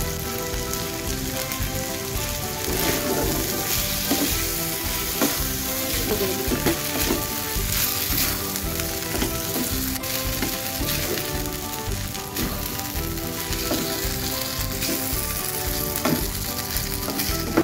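Rice sizzling as it is stir-fried in a hot pan, a slotted wooden spatula scraping and tossing it against the pan with irregular short knocks.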